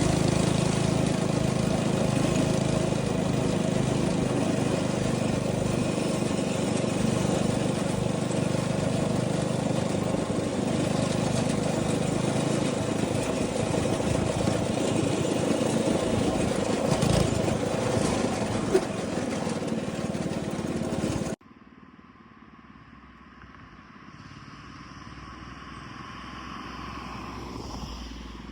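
Go-kart's 212cc single-cylinder engine running steadily. About 21 seconds in the sound cuts off abruptly and gives way to a much quieter engine sound that slowly grows louder.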